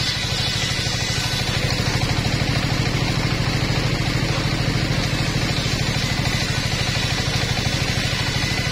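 Engine-driven table circular saw running steadily while a wooden plank is ripped lengthwise through the spinning blade. The engine's rapid, even pulse is the loudest part, with the blade and cut adding a steady hiss above it.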